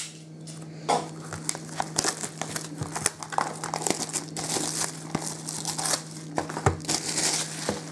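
Clear plastic shrink wrap being torn off a cardboard trading-card box and crumpled in the hands: a dense, irregular run of crinkles and crackles.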